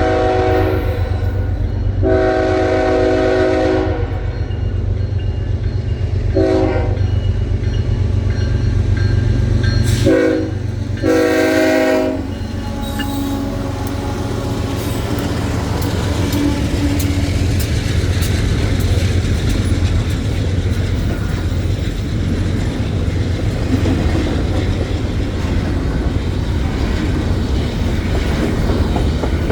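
A freight train's horn sounds the grade-crossing pattern (long, long, short, long, the last blast ending about 12 seconds in) over the low rumble of the lead GE ES44C4 diesel locomotive. The locomotive then passes and the train's cars roll by with steady rail clatter and wheel clicks.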